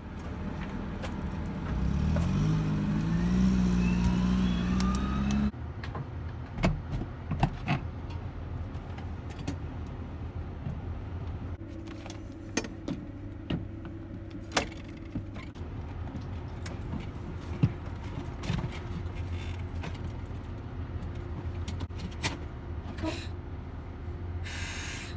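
A machine whose pitch rises steadily for about five seconds, then cuts off abruptly. After that, scattered knocks, clicks and rattles over a steady low hum, as a person climbs into the cockpit of a Cessna 208 Caravan.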